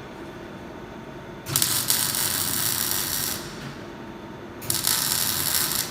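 Electric arc welding: two bursts of crackling, sputtering arc, the first about two seconds long and the second starting near the end, with a low steady hum between them.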